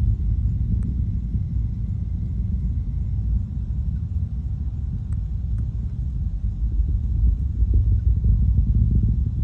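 Distant rocket launch rumbling: a low, deep, crackling roar that swells a little louder near the end.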